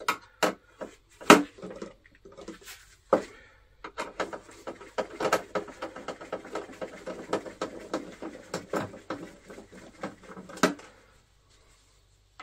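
Clicking and rattling of small parts being handled while the motor plate of a vintage RC model boat is worked loose: a few sharp separate clicks and knocks, then several seconds of dense, rapid clicking and rattling that stops about a second before the end.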